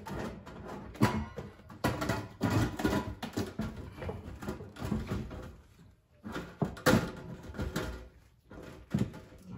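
Black stainless steel range hood chimney sections being slid into place over the hood: sheet metal rubbing and knocking in irregular bursts, with short ringing after some knocks.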